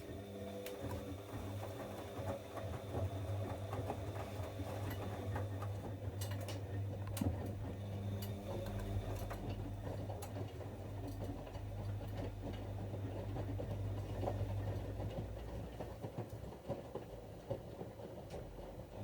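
Bosch Avantixx 7 front-loading washing machine running its wash cycle, its drum motor turning the drum with a steady hum and a deeper rumble from about halfway in to near the end, plus scattered light clicks.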